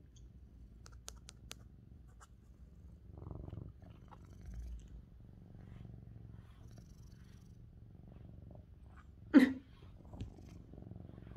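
Lynx point Siamese cat purring steadily while being brushed, with one brief loud sound about nine seconds in.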